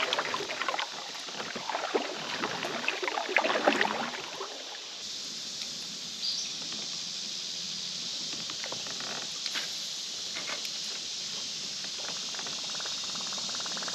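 Water splashing and small knocks around a plastic fishing kayak for the first few seconds. After that, a steady high hiss with a few scattered faint ticks.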